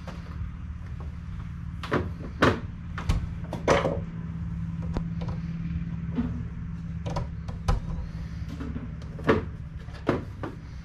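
Plastic dye jars and an electric kettle being picked up and set down on a metal counter, a series of sharp clacks and knocks with the loudest about two and a half, four and nine seconds in, over a steady low hum.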